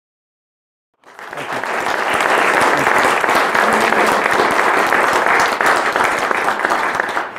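An audience clapping: the applause starts about a second in, holds steady, and dies away near the end.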